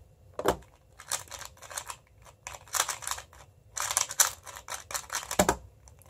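MoFang Jiaoshi MF2S 2x2 speed cube being turned at speed during a timed solve: bursts of rapid plastic clicking and clacking. A single louder thump comes near the end.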